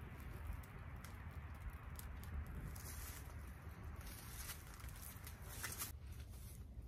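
Dry-grass tinder bundle burning in the hand, crackling and rustling as it flames up from a friction-fire ember, over a low wind rumble on the microphone. The crackling dies away about six seconds in.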